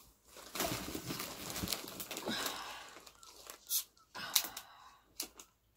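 Plastic crinkling and rustling for a few seconds, then a few short, sharp clicks in the second half as a plastic drinks bottle's screw cap is twisted open.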